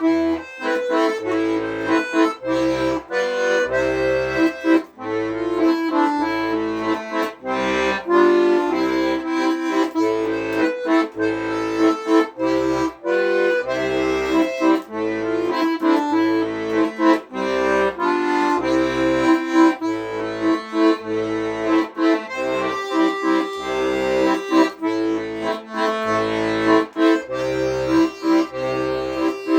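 Accordion playing an instrumental piece solo: a melody in the right hand over a left-hand accompaniment of regular low bass notes keeping an even beat.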